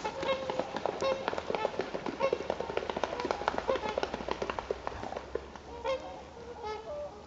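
A flock of trumpeter swans honking, many short calls overlapping, busiest in the first four seconds and thinning out after that.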